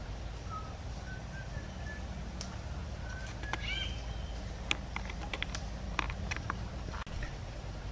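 Wild birds chirping short, high calls, with a few sharp woody clicks and snaps in the second half.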